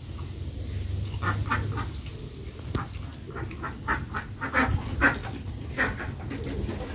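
A run of short, repeated animal calls, starting about a second in and going on until near the end.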